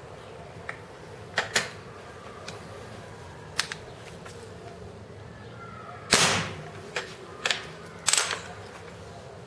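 A pellet air gun fires once about six seconds in: a sharp crack with a short ringing tail, the pellet passing through a chronograph. Several smaller sharp clicks and knocks come before and after it.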